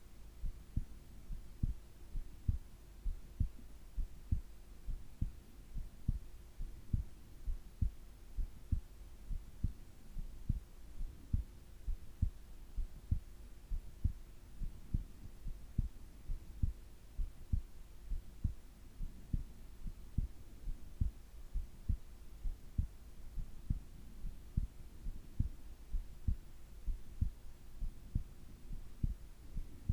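Human heartbeat of a person asleep: a regular, even beat of soft low thumps, with a faint steady hum underneath.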